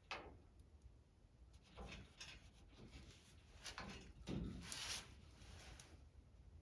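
Faint scattered taps and scrapes of a paint marker being pushed through the holes of a plastic rocker panel to dot the door behind it, with one longer scratchy rub about five seconds in.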